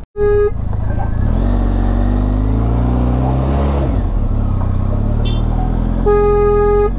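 A motor vehicle's single-tone horn gives a short beep, then the engine runs and pulls away, its pitch rising until it drops about four seconds in. Near the end the horn sounds one long blast.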